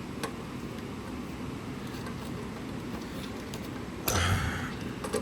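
Handling of a speaker's parts during disassembly: a light click about a quarter second in, then a knock and a brief rustle about four seconds in, over a steady low room hum.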